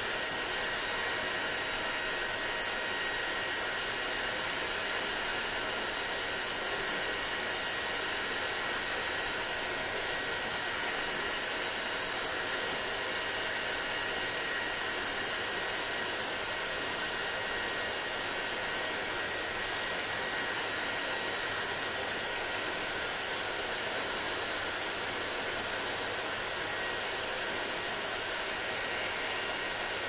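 Handheld hair dryer running steadily as it blows on long hair: a constant rush of air with a faint thin whine in it.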